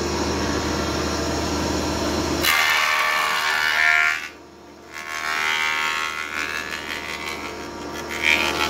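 Multipurpose woodworking machine working as a planer-thicknesser, running loud and steady. About two and a half seconds in the sound changes abruptly to a noisier cutting sound with a whine as a board goes through, and it dips sharply for a moment about four and a half seconds in.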